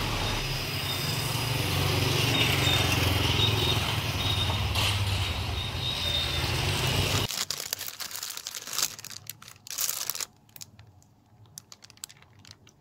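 Street traffic: the low, steady engine rumble of passing motorcycles and cars, which cuts off suddenly about seven seconds in. Then scattered crinkling of a plastic soup bag being handled, with quiet gaps between.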